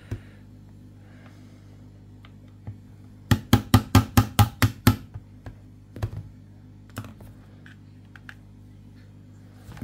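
A quick run of about ten sharp taps, roughly six a second, as a screwdriver handle knocks a push pin out of an Umarex HDP .50 pistol's frame. A few single clicks follow.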